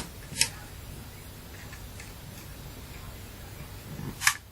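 Sharp clicks of small hard parts, such as plastic casing pieces or tools, being handled while a handheld fan is taken apart: two close together at the start and one near the end, over a low steady hum.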